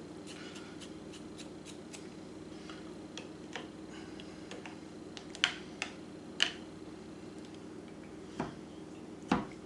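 Metal spoon clinking and scraping against a glass jar of minced garlic and a bowl: a run of light ticks, then several sharper clinks in the second half, over a steady low hum.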